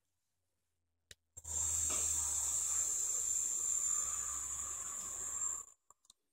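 Electronic cigarette (Nemesis mechanical mod with a dripper atomizer) fired during a long drag: a click about a second in, then a steady hiss of the coil vaporising e-liquid as air is drawn through, lasting about four seconds and stopping abruptly, followed by a couple of faint clicks.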